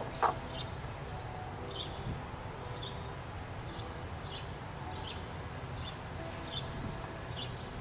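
A small bird chirping over and over, short high notes about once or twice a second, over a low steady outdoor rumble. A brief sharp handling sound comes just after the start.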